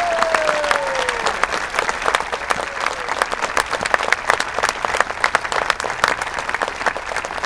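Crowd applauding, with dense, steady clapping. In the first second one long high cheer rises above it and falls in pitch.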